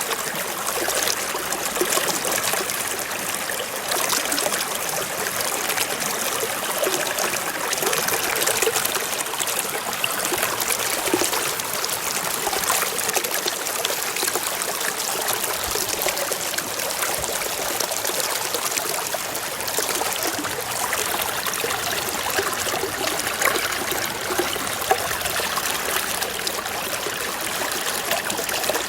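Water falling and splashing in a steady rush, with many small splashes and trickles on top.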